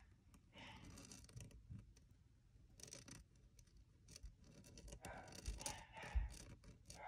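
Calligraphy pen nib scratching faintly across paper in several short spells of strokes.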